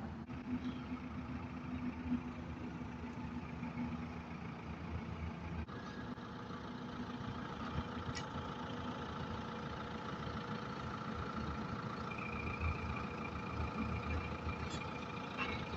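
Excavator engine running steadily at a constant pace, with a steady high whine joining about halfway in.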